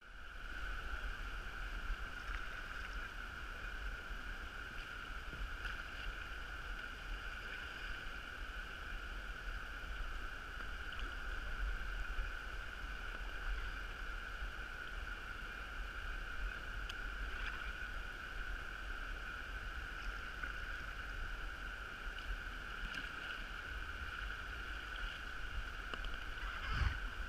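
Steady rush of river water pouring over a low weir, with a low rumble of wind on the microphone. A brief louder swell of water comes near the end.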